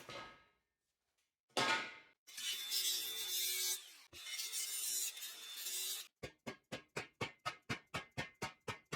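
Metalworking noise: scraping and rasping on steel, then a fast, even run of short rasping strokes, about six a second, near the end.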